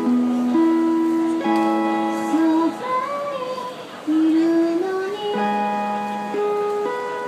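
A woman sings into a handheld microphone over sustained backing chords, her voice sliding between held notes.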